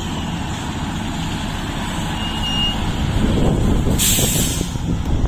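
Heavy diesel engines rumbling steadily under load as a tractor tows a large truck on a chain. A short, loud burst of air hiss comes about four seconds in.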